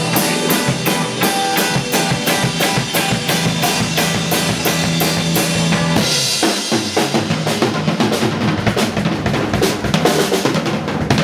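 Live rock band playing an instrumental passage: electric guitar over a drum kit keeping a steady beat. About six seconds in, the held guitar notes drop back and the drums and cymbals take over.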